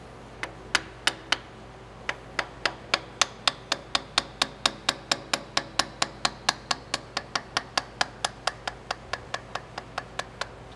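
Light, evenly spaced metal-on-metal tapping, about three to four strikes a second with a short pause about a second and a half in. A steel punch or screwdriver is being tapped against the key in the crankshaft-nose keyway of a Buick straight-8 to work the key out.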